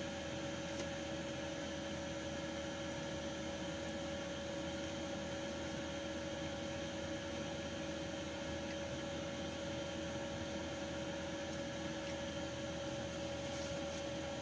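Steady room hum and hiss with a constant mid-pitched tone, like an appliance or fan running.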